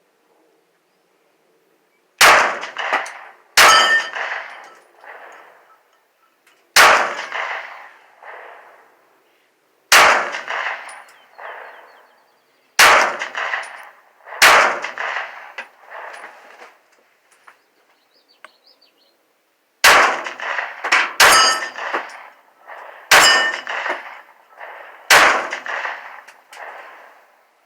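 Ten 9mm gunshots fired at steel targets, unevenly spaced about one and a half to five seconds apart. Each shot is followed by the clang of the hit steel plate ringing out and fading with the echo.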